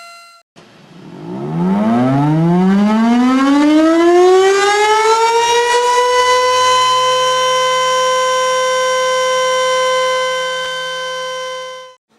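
Tornado siren winding up: its pitch rises over about five seconds and levels off into a steady, loud wail with a lower second tone joining underneath. The wail cuts off suddenly near the end. Just before the wind-up, a different steady siren tone ends abruptly about half a second in.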